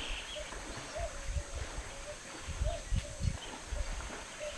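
Elephant wading through shallow pond water, its legs making low, irregular sloshing thuds. Over it a bird repeats a short call about twice a second, with a few higher chirps.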